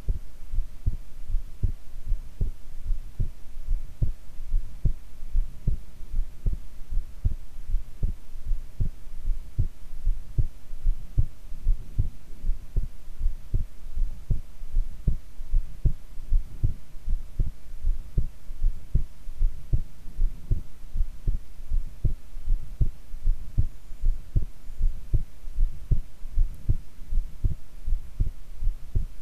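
A woman's heartbeat, recorded while she lies face down: a steady, regular lub-dub beat, low in pitch, with a faint steady hum beneath it.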